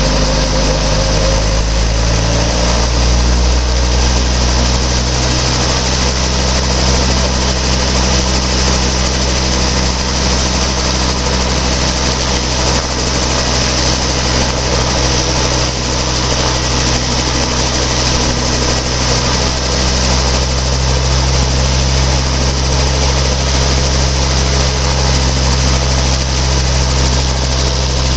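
Robinson R22 helicopter on the ground during startup: its four-cylinder Lycoming piston engine runs with the main and tail rotors turning. The pitch steps up about two seconds in as the engine speeds up, then holds steady.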